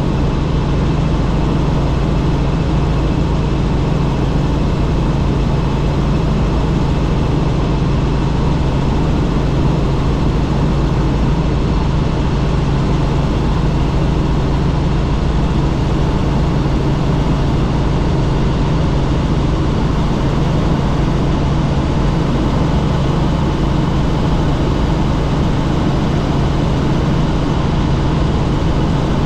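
A Robinson helicopter in steady cruise flight, heard from inside the cabin: a loud, unchanging drone of engine and rotor with a low hum underneath.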